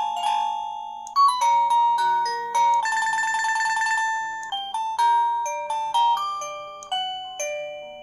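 Wireless doorbell chime playing its electronic ringtone melodies, a run of clear ding-like notes with a fast trill about three seconds in.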